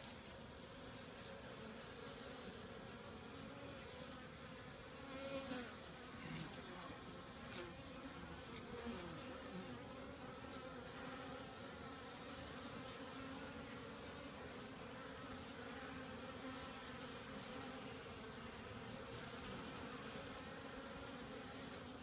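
Honeybees buzzing at the hive entrance: a faint, steady hum from many bees flying in and out. Now and then a single bee passes close, its buzz briefly louder and bending in pitch, mostly between about five and ten seconds in.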